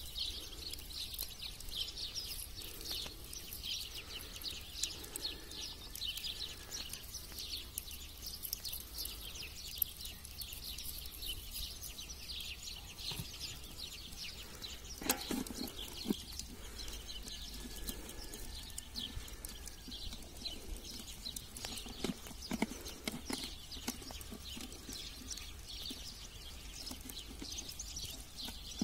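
Many small birds chirping in a steady chorus, with a few soft knocks from the aluminium pot and its lid being handled, the loudest about halfway through.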